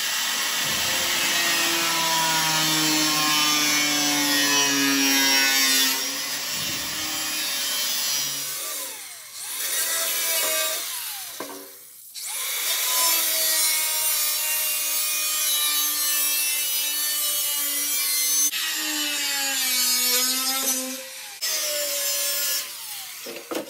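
Handheld power tool cutting through old grain-header divider sheet metal, its pitch sagging and rising with the load. It stops and starts again twice near the middle.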